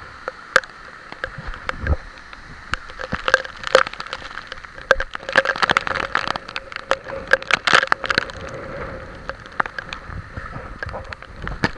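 Heavy typhoon rain close to the microphone: a steady wash of rain with dense, irregular crackling taps of drops striking near it.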